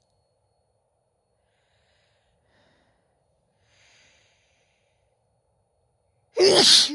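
A woman sneezes once, loudly, near the end, with a falling pitch in the sneeze. Two faint breaths in come a few seconds before it.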